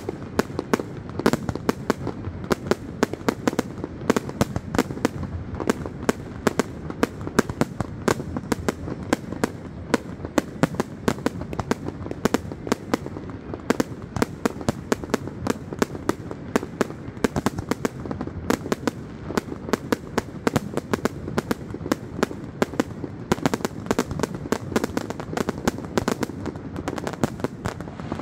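Fireworks display: a rapid, unbroken run of bangs and crackling reports, many a second.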